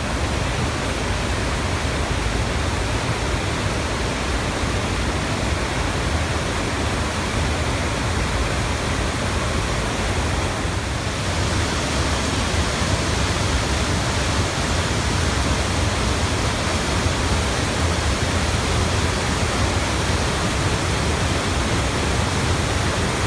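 Whitewater of a fast mountain river rushing over boulders and churning through a narrow rock gorge: a loud, steady rush with a deep rumble underneath.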